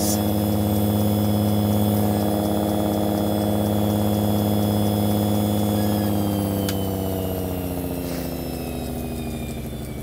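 Home-built dual-rotor air raid siren, belt-driven by a universal washing-machine motor, sounding a steady, low resonant tone at reduced speed, then winding down with slowly falling pitch and loudness from about six seconds in. A light clicking from the laminated belt edge running over the pulleys goes with it.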